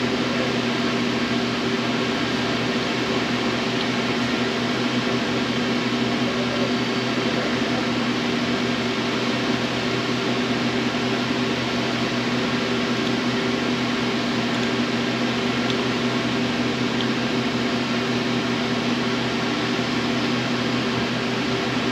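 Steady mechanical hum of a running fan, a constant whoosh with a low drone that does not change.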